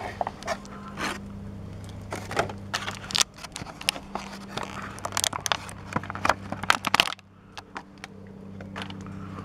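Clear plastic blister pack and cardboard backing of an action-figure package being torn open by hand, with sharp crinkling, crackling and snapping plastic that stops about seven seconds in.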